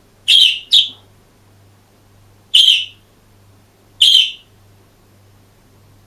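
Budgerigar giving four loud, short, high chirps: two in quick succession near the start, then one about two seconds later and one more about a second and a half after that.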